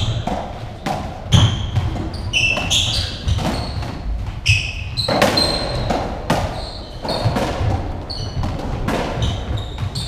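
Racketball rally on a squash court: the hollow rubber ball is struck by the rackets and smacks off the walls and wooden floor again and again, with the players' shoes squeaking on the floor between hits.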